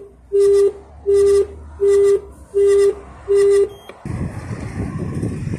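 Station customer help point intercom speaker sounding a repeating beep: five short, equal beeps at one pitch, about 0.7 s apart. About four seconds in, it gives way to a steady rushing wind noise.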